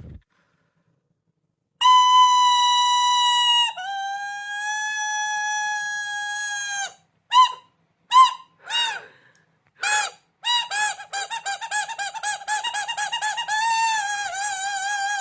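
Loud, shrill whistle-like tones made to bother a cat. After a short silence there is a long held note that drops to a lower one and holds. A few short bleeps follow, then a fast warbling run that carries on to the end.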